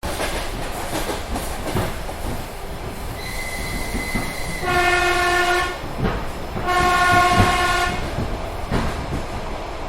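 Train running along the track with a steady rumble and wheel clatter, a thin high wheel squeal about three seconds in, then two horn blasts of about a second each.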